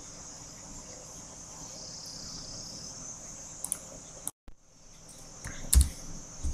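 A steady high-pitched drone sounds in the background over quiet room tone, with a brief dropout to silence about four seconds in and a single thump near the end.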